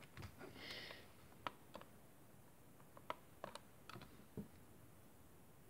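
Faint, irregular clicks and taps as a finger presses the momentary push button on a homemade transistor tester's plastic case, stopping about four and a half seconds in.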